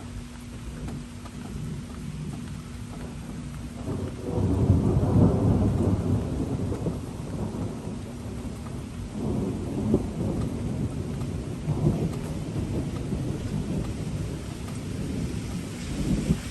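Steady rain with rolling thunder: a loud low rumble builds about four seconds in, and weaker rumbles return a few times after it.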